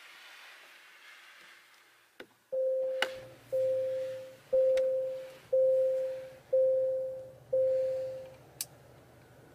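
A click, then six electronic warning chimes from a 2022 Genesis GV80's dash, about one a second, each a clean mid-pitched ding that fades. A low steady hum from the 2.5 T-GDi engine idling starts beneath them.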